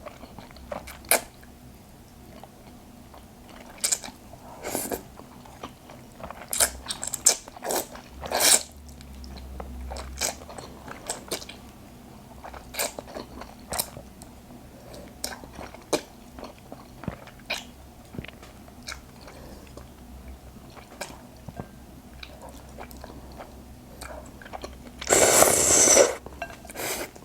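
Mouth sounds of a person eating thick, sauce-coated Buldak spicy fried noodles up close: scattered wet smacks and clicks while chewing. Near the end comes one louder, noisy sound about a second long.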